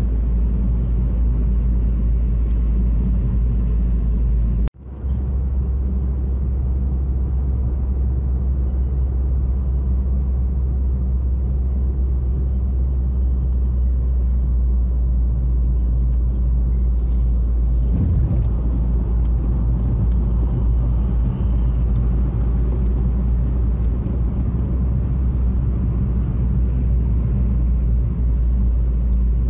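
Steady road and engine drone heard inside a moving car's cabin. The sound drops out abruptly for a moment about five seconds in, then the same drone resumes.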